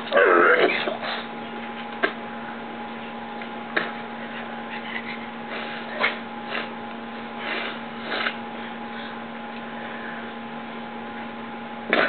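A man hacking harshly over a plastic trash bag about half a second in, followed by scattered short sniffs and small noises, and another hack near the end. A steady electrical hum runs underneath.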